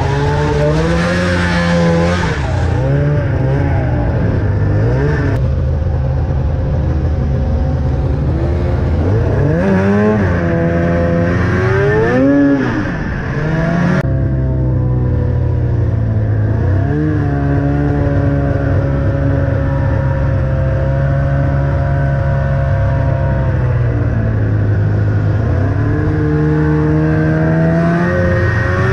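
Arctic Cat ZL600 snowmobile's two-stroke twin engine running under way, its pitch rising and falling with the throttle. It revs up sharply about ten seconds in, drops briefly, holds a long steady run, then climbs again near the end.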